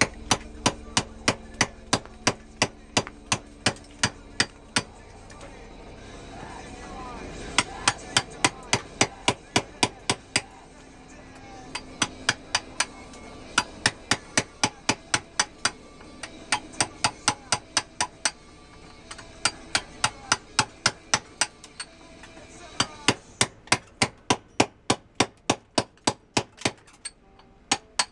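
Hammer striking a steel chisel into a marble block, about three sharp blows a second in runs with short pauses, cutting an outline line while roughing out the stone.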